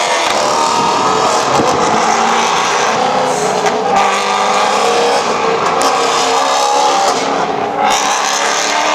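Maserati GranTurismo MC Trofeo race cars passing one after another at speed, their V8 engines loud. The engine pitch shifts as each car goes by, and a second car takes over about halfway through.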